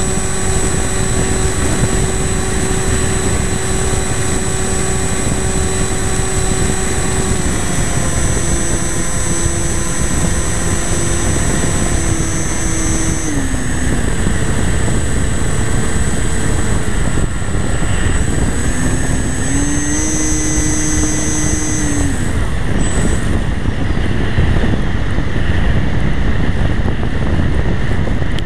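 On-board sound of a radio-controlled FPV model plane in flight: the motor and propeller whine under a steady rush of wind on the microphone. The whine drops in pitch about a third of the way in and again around halfway as the throttle comes back, climbs briefly about two-thirds through, then falls away.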